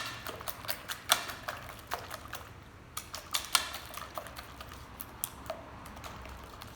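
Wire whisk beating eggs and sugar in a bowl, its wires clicking and tapping against the bowl's side in an irregular patter several times a second.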